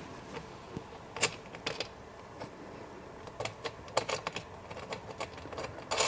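Irregular small clicks and taps of bolt hardware being fitted by hand, knocking against the wheelbarrow's steel frame and plastic drum. The taps come a few at a time, more often in the second half.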